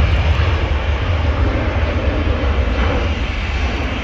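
Jet airliner's engines at take-off power as it rolls down the runway and lifts off: a loud, steady rumble with a wide hiss, easing a little toward the end.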